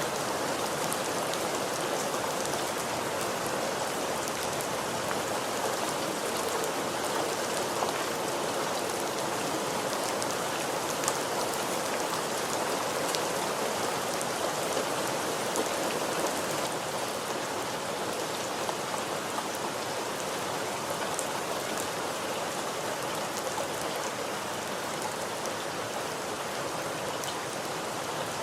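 Steady rain falling on a surface, an even wash of noise with scattered individual drops ticking through it.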